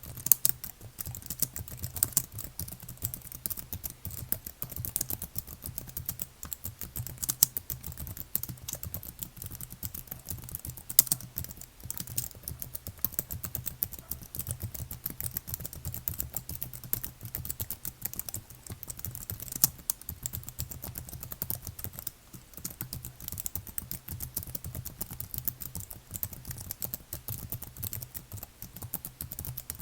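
Continuous typing on a computer keyboard: a steady stream of rapid key clicks, with a few louder strikes standing out, such as near 11 seconds in.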